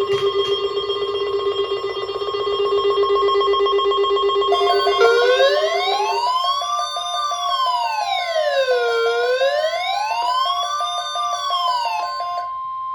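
Emergency Alert System alarm tones: a steady high tone over a lower buzzing tone, joined about five seconds in by a wailing siren tone that rises and falls slowly, about four seconds to a cycle. The buzzing tone stops about six seconds in and the siren near the end, leaving the steady tone.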